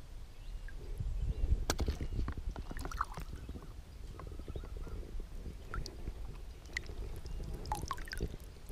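Water lapping and sloshing around a wading angler, with a few small splashes and drips as wet hands handle a caught tilapia and the fishing rod, over a low steady rumble. The splashes cluster a second or two in and again near the end.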